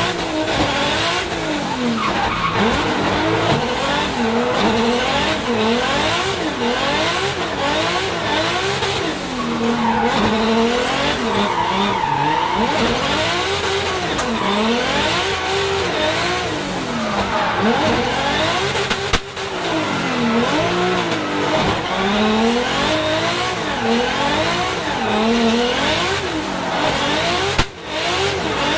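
Turbocharged Toyota 2JZ straight-six of a 900 hp Nissan Silvia S15 drift car heard from inside the cabin, its revs climbing and falling again and again as the throttle is worked through a drift run, with tyres squealing. A sharp crack just past two-thirds through and a short break in the sound near the end.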